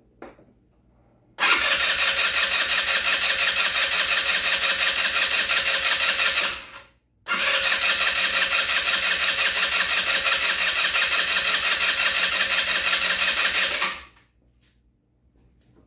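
Electric starter cranking a new GY6 scooter engine on its first start attempt, in two long tries of about five and seven seconds with a short pause between. The rapid, even pulsing stays steady through each try, and each stops after it is released.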